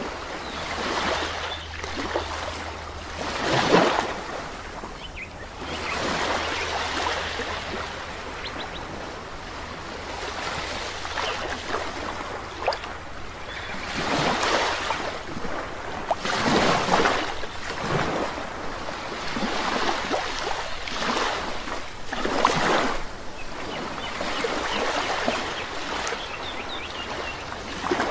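Sea waves breaking and washing up on a shore, surge after surge every few seconds.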